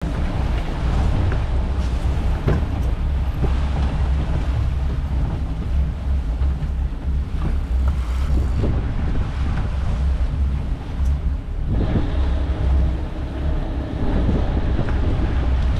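Motor boat's engine droning steadily while underway, with wind buffeting the microphone and the rush of water in the wake.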